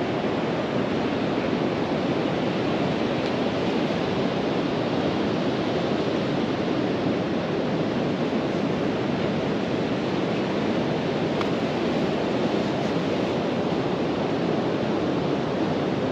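Ocean surf breaking, a steady, even rush with no pauses.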